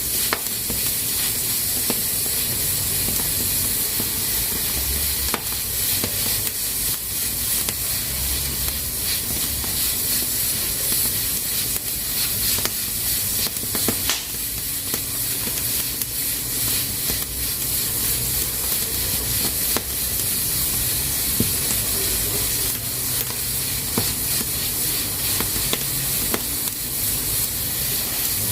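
Pressure cooker venting steam through its valve: a steady, high hiss, with scattered short clicks.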